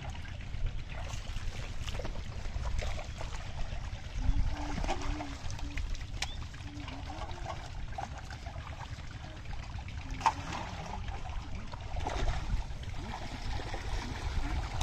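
Shallow muddy pond water sloshing and trickling as people wade through it and grope in the mud by hand, with scattered small splashes.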